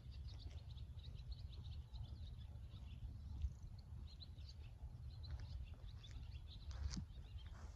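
Quiet outdoor ambience: faint, scattered bird chirps over a steady low rumble.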